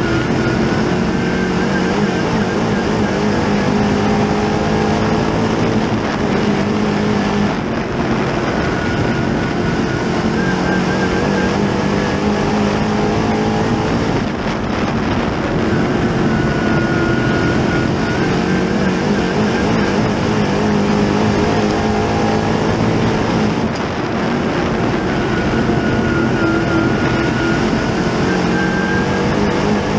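Dirt late model race car's 604 crate small-block V8, heard from inside the cockpit at racing speed, its pitch rising and falling again and again as it accelerates and backs off through the laps, with a few brief dips in level.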